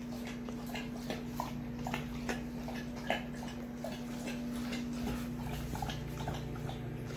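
A dog making short, soft sounds over the steady hum of a microwave oven running.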